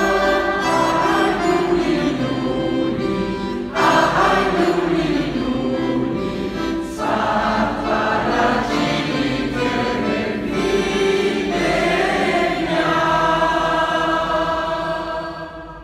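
Mixed choir of men and women singing in long held notes, fading out near the end.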